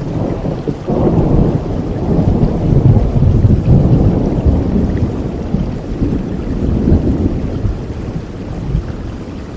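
Steady rain with a long roll of thunder that builds about a second in and slowly fades over several seconds.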